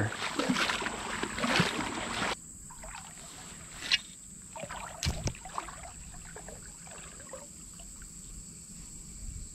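Creek water sloshing and splashing, loudest for the first couple of seconds and then dropping off abruptly to a quieter trickle with a few small clicks.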